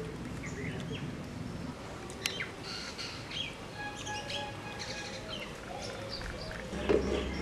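Several birds chirping and whistling, many short calls overlapping, with a couple of brief held whistle notes in the middle. A short thump near the end is the loudest sound.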